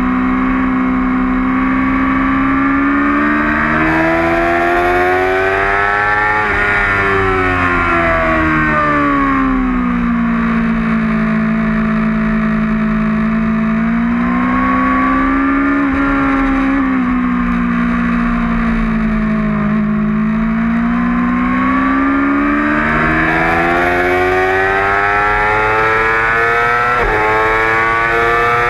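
2008 Yamaha R6's 600 cc inline-four engine at racing revs. The pitch climbs, drops sharply about six seconds in, holds fairly steady while the bike is leaned through a long corner, then climbs again on corner exit, with a quick break near the end as it shifts up.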